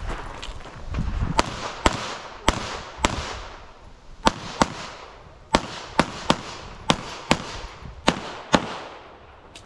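Pistol shots fired in a USPSA practical shooting stage: about a dozen sharp reports, mostly coming in quick pairs and runs a third to half a second apart, with a short break as the shooter moves between positions.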